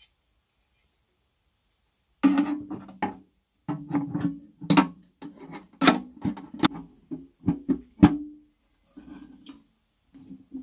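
Metal knocks and clinks as a steel crank rod is worked into the sheet-metal drum of a 1930s Pulvis-R powder duster, the hollow housing ringing briefly at the same low pitch after each knock. The knocking starts about two seconds in and comes in irregular clusters.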